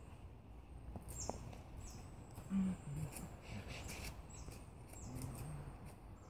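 Short, high, falling bird chirps repeating over quiet outdoor background noise, with a few faint clicks and knocks from a bow drill set being fitted together by hand.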